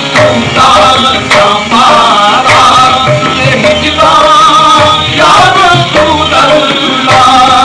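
Qawwali music: voices singing a Persian devotional melody over tabla beats.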